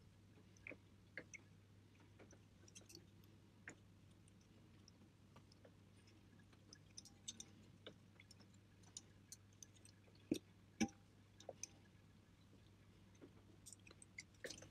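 Faint scattered clicks and taps of small steel parts as greased tapered valve collets are worked onto a valve stem with a small screwdriver, under a valve spring held down by a spring compressor. Two louder knocks come a little past the middle, over a low steady hum.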